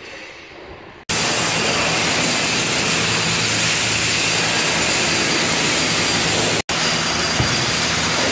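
Loud, steady machinery noise of a heavy-equipment fabrication shop: an even rushing roar with a low hum under it. It cuts in suddenly about a second in and drops out for an instant near the end.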